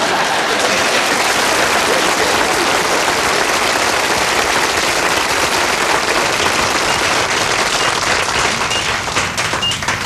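Audience applause, a dense steady clapping that eases slightly near the end.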